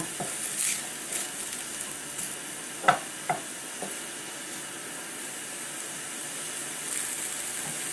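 Diced onion and garlic sizzling softly in oil in a stainless steel frying pan as a wooden spoon stirs them, sweating over gentle heat. Two short knocks come about three seconds in.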